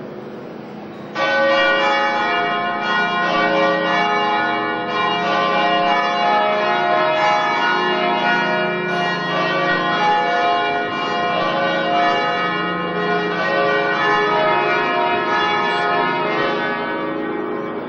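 Church bells ringing, many tones overlapping; the ringing jumps sharply louder about a second in and carries on steadily.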